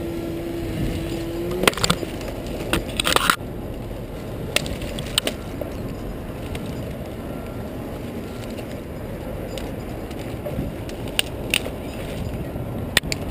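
Steady low engine rumble from the crane working the tree removal, with a few sharp clicks and knocks and a short clatter about three seconds in. A steady hum stops within the first two seconds.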